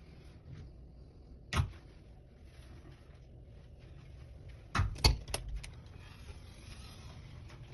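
Wardrobe doors being pushed shut: one sharp click about a second and a half in, then a quick run of clacks around five seconds in, over a low steady hum.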